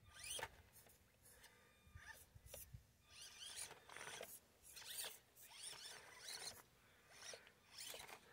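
Faint whine of an Axial SCX24 micro RC crawler's small electric motor and drivetrain, coming in short throttle bursts that rise in pitch, repeated a dozen or so times as the truck crawls over rocks.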